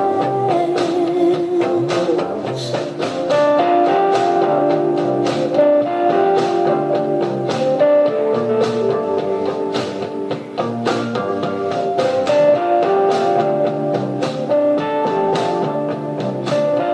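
Instrumental passage of a pop-rock song, guitar over a steady drum beat, played back through the Asus NX90JQ laptop's built-in speakers, with almost no deep bass.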